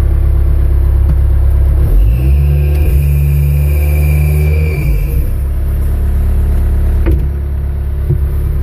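The Cat 252B3 skid steer's 75 hp Cat diesel engine running steadily. About two seconds in it revs up, with a high whine over it, and about five seconds in it settles back down.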